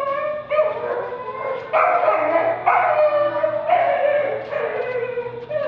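A woman singing a slow melody of long held high notes, about one a second, the line drifting lower near the end.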